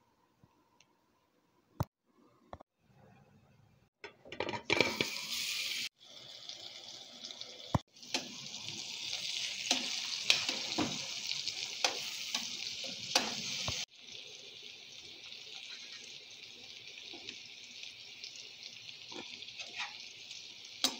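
Turmeric-coated fish pieces sizzling in hot oil in a frying pan, a steady hiss full of small pops and crackles. It starts suddenly about four seconds in, after a near-quiet opening with a couple of clicks.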